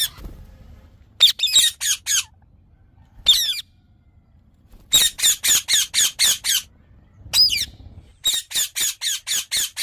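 Indian ringneck parakeet squawking: loud, shrill calls in quick runs of several notes at about five a second, with single calls and short pauses between the runs.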